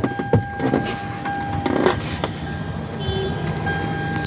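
Toyota Highlander's key-in-ignition reminder chime sounding as a thin steady tone, with knocks and rustling as someone moves about the driver's seat. The chime sounds even though the key is out of the lock position, which the mechanic puts down to a worn key and a faulty ignition lock.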